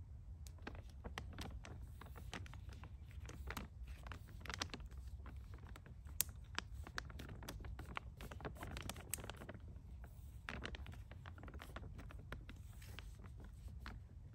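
Crinkling and crackling of a foil-laminated tactical food pouch being torn open and handled, in irregular bunches of sharp crinkles over a low steady rumble.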